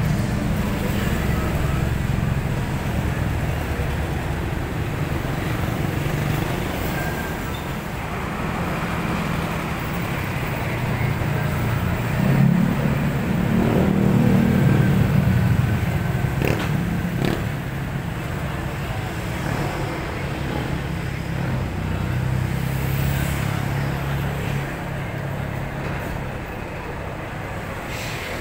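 Road traffic passing close by: car and motorcycle engines and tyres running steadily, with one vehicle going by louder in the middle.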